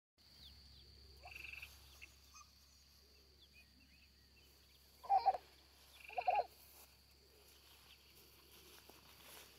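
White domestic ducks quacking in two short bouts about five and six seconds in, over a faint steady high whine and a few brief trilling chirps.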